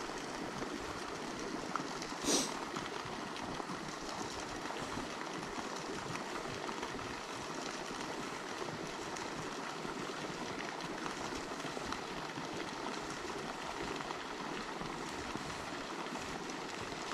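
Steady running-water noise, with one brief, sharp sound about two seconds in.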